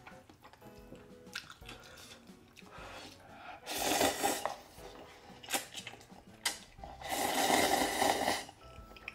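A person slurping noodles from a cup: two long, loud slurps, about four seconds in and again around seven to eight seconds, with a few small clicks and mouth sounds between. Faint background music underneath.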